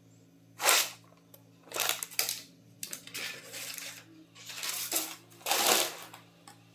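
Paper crinkling and rustling in several short bursts as the paper-sealed lid of a clay cooking pot is handled and lifted off, over a faint steady low hum.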